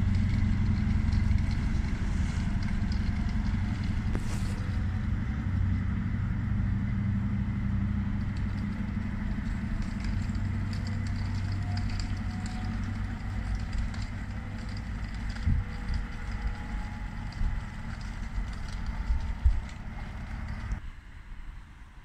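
Diesel train engine running with a steady low drone that slowly fades, then cuts off sharply near the end.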